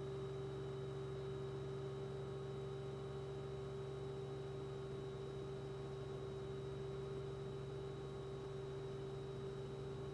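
A steady hum of constant tones, one strong mid-pitched and one lower, that holds unchanged throughout.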